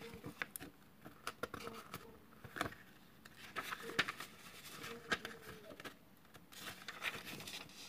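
Pages of a book being turned and handled: paper rustling with light taps and clicks, in short irregular bursts.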